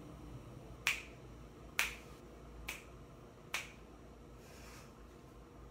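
Four sharp clicks, evenly spaced about a second apart.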